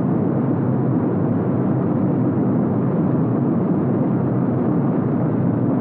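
Steady drone of a heavy bomber's engines heard inside the aircraft, a dense low rumbling noise with no breaks.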